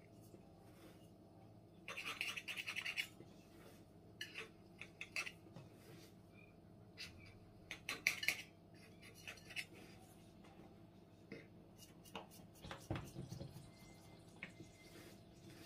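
Knife blade scraping and clicking against the rim of a round steel baking tray as the edge of a baklava dough sheet is trimmed, in short scraping bursts with a longer rasping scrape about two seconds in and a run of quick clicks near the end.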